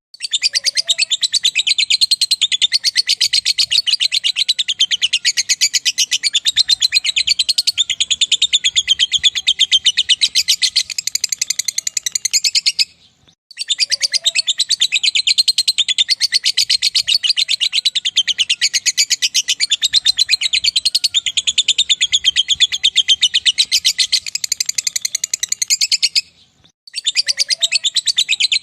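Lovebird 'ngekek': a long, very rapid, high-pitched chattering trill that runs on for about 13 seconds at a time. It breaks off briefly twice, about 13 and 26 seconds in, and the same long phrase starts again each time.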